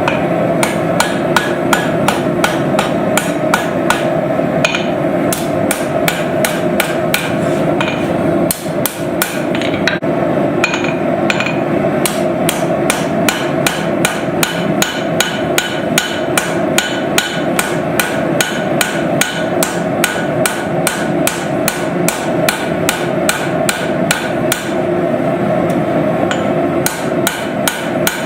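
Hammer blows forging steel, struck in a fast, even rhythm of about three a second with one brief pause near the middle, over a steady hum.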